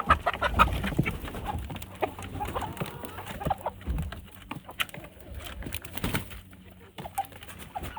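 Chickens clucking with short, scattered calls, mixed with sharp knocks and scuffs; busier in the first half and quieter after about six seconds.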